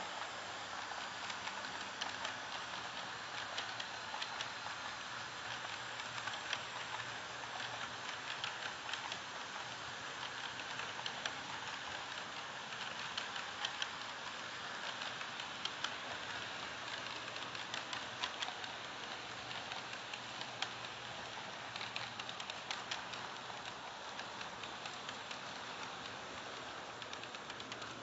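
N scale model trains running on Kato Unitrack: a steady fine rattle and hiss of small metal wheels rolling on the rails, broken by many light clicks and ticks.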